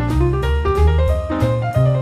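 Jazz background music: piano over a walking bass line, with light drums.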